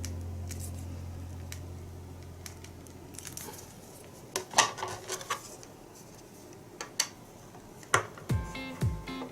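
A low held music note fades out, then a handful of sharp clicks and soft crinkles of plastic being handled, a figure and its packaging. Music starts again near the end.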